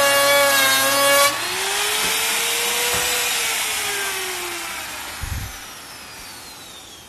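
Compact trim router cutting a 5 mm groove along the edge of a wooden board, its motor tone wavering under load. The cutting stops abruptly about a second in, and the motor's whine fades away over the next few seconds, with a dull thump near the end.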